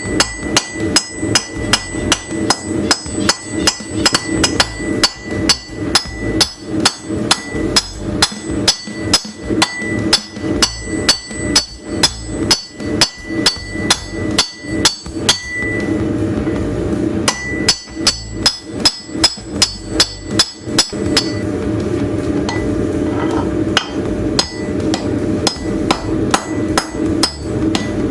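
Hand hammer striking a hot railroad spike on an anvil in a steady rhythm of about two blows a second, each blow ringing. The hammering pauses briefly about 15 seconds in. After about 21 seconds the blows are lighter, over a steady low hum.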